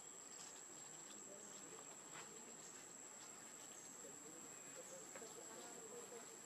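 Faint, steady high-pitched drone of insects, a single thin whine that holds without a break, with a few faint scattered ticks.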